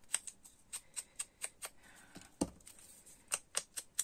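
A string of small, sharp clicks, roughly three a second and irregular, from handling small paper pieces and tools at a craft table, with one heavier knock about halfway through.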